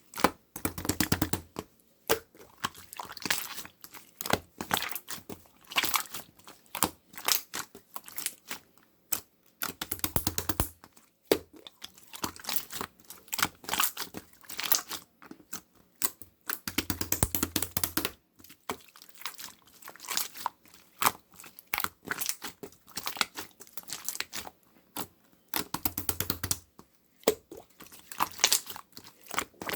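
Hands squishing and kneading slime: a dense run of quick sticky crackles and pops, broken by four longer, fuller squishes spread through.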